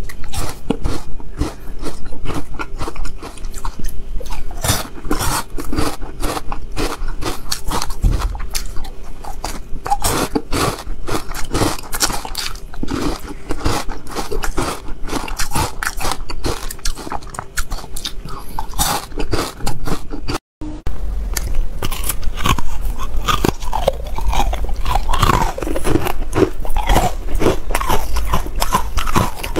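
Close-miked crunching and chewing of frozen ice pieces coated in matcha powder: dense, rapid crunches as the ice is bitten and chewed. A brief break about 20 seconds in, then more crunching and wetter chewing.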